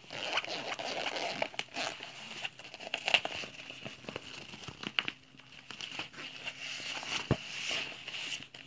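Fabric of a nylon cycling backpack rustling and crinkling as it is handled, with scattered short clicks and taps as a hand opens its front compartment and reaches inside.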